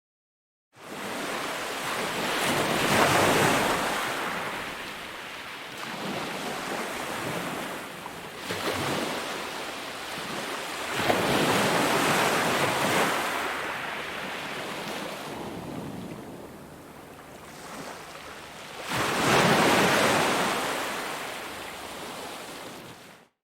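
Ocean waves breaking and washing ashore, swelling and ebbing in long surges, with three big waves loudest among them.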